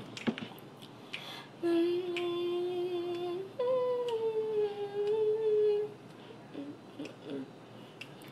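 A singer humming a cappella: one long steady note, then a higher held note that slowly falls in pitch.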